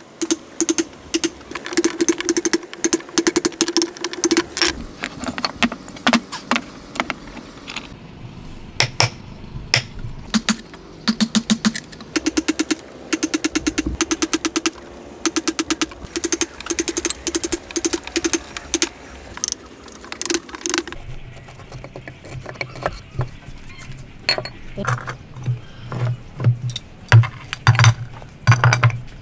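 Hammer striking a wood chisel to chop a mortise in a block of timber: rapid runs of sharp knocks with short pauses between them. Over roughly the last eight seconds the blows turn duller and deeper.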